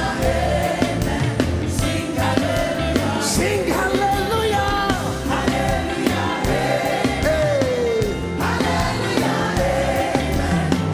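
Live gospel worship music: voices singing long held and gliding notes over instrumental backing with a steady beat.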